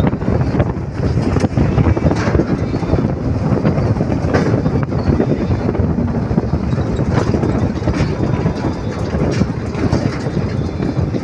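Steady engine and road noise inside the cab of a Tata 12-wheel truck cruising on the highway, with the cab rattling and knocking now and then.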